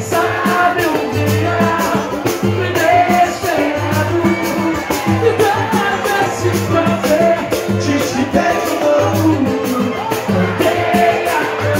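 Live samba band playing: pandeiro and other percussion keeping a steady beat under cavaquinho, acoustic guitar, keyboard and bass lines.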